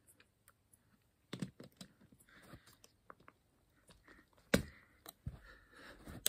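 Plastic clicks and knocks of Lego Technic pieces as a loose wheel is handled and pushed back onto a Lego car, in irregular taps with one sharper knock about four and a half seconds in.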